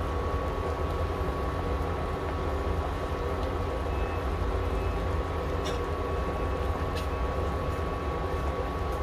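Soup at a rolling boil in a pan on an induction cooktop: steady bubbling over the cooktop's low fan hum and a steady high whine, with two light clicks about six and seven seconds in as ginger and lemongrass are dropped in.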